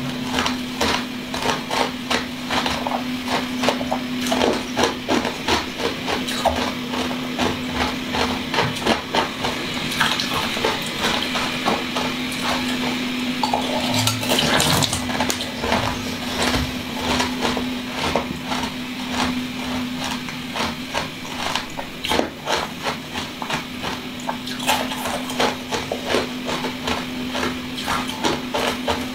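Close-miked eating sounds from jelly domes filled with small beads: wet chewing, squishing and many small irregular clicks and smacks, busiest about halfway through. A steady low hum runs underneath.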